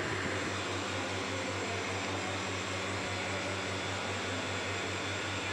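Air pump of a pitot-static instrument test rig running steadily, changing the air pressure in the sealed chamber that holds an altimeter and an airspeed indicator: a low, evenly pulsing hum under a steady hiss.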